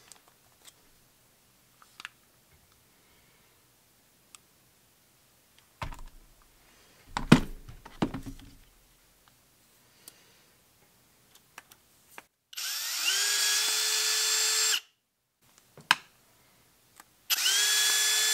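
Hilti brushless cordless screwdriver running in two bursts of about two seconds each, backing screws out of a drill's motor and gearbox housing; each run starts with a quick rise in pitch, then holds a steady whine. Before them, clicks and a clatter of parts being handled.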